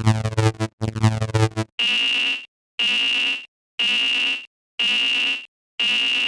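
Synthesized electronic warning signal of a cartoon level crossing: two short buzzy, warbling bursts, then five steady high-pitched beeps about one a second, each cut off cleanly.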